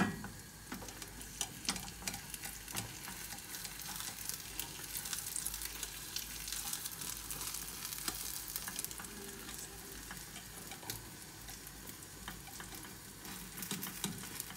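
Egg-and-spinach omelette sizzling in oil in a non-stick frying pan over medium heat: a steady crackling hiss with scattered small pops. A sharp knock right at the start.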